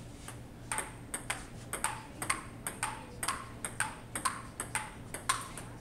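Table tennis rally: the ball clicks off the paddles and the tabletop about four times a second in a quick back-and-forth, stopping shortly before the end. A faint steady hum runs underneath.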